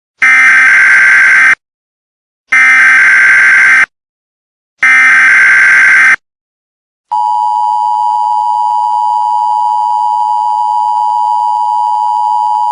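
Emergency Alert System tones, simulated: three loud screeching digital header bursts, each about a second and a quarter long with a second of silence between them, then, about seven seconds in, the steady two-tone attention signal, a loud droning beep that holds. The tones announce an emergency broadcast about to begin.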